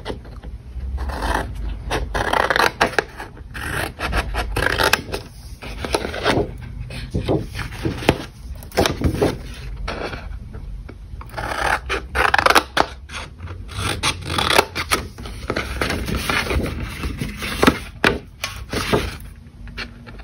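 Scissors snipping short slits into thick white cardstock along its score lines, a run of irregular cuts with the sheet rubbing and scraping as it is handled between them.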